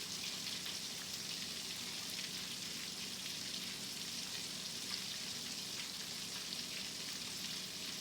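Breaded chicken pieces deep-frying in hot oil: a steady sizzle with fine crackling, the chicken close to done.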